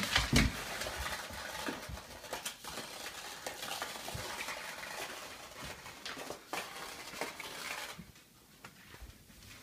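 A HexBug toy's vibrating motor buzzing as it skitters across a hardwood floor, mixed with the light clicking of a dog's claws on the wood, after a couple of low thumps at the start. The buzzing rattle drops off suddenly about eight seconds in.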